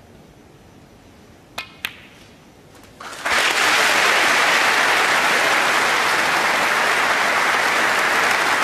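Two sharp clicks of snooker balls about a second and a half in, the cue tip striking the cue ball and the cue ball hitting the object ball. About a second later the arena crowd breaks into loud, steady applause, greeting a century break.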